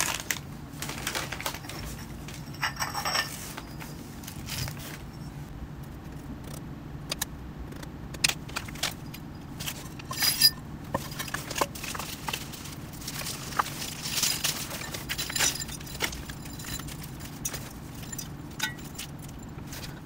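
Repotting handling sounds: irregular clicks, knocks and scrapes with rustling as potting soil, a hand trowel and plastic and ceramic pots are handled on spread newspaper, the sharpest click about ten seconds in, over a low steady hum.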